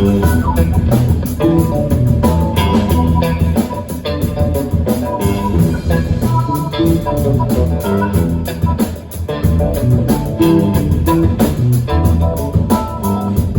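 Live band playing instrumentally: guitar over a bass line and drums with a steady beat.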